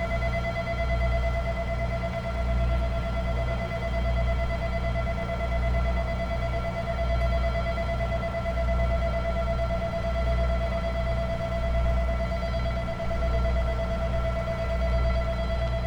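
Electric station departure bell ringing without a break, over the low rumble of a diesel railcar's engine, which swells and fades about once a second.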